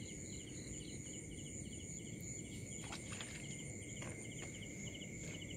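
Night chorus of crickets and other insects: several steady high trills, with a quick chirp repeating a few times a second. A few faint knocks come about three and four seconds in.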